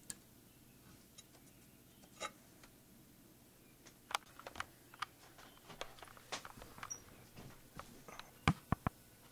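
Scattered light clicks and taps from hands and the camera handling the opened TV set, with three sharper clicks close together near the end.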